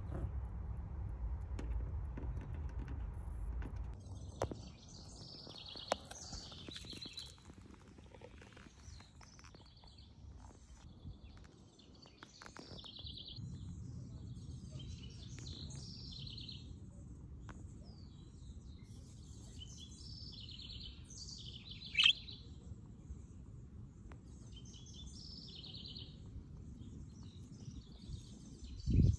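Small birds chirping and twittering in repeated short clusters over a low outdoor rumble, with one sharp, high call late on and a dull bump at the very end.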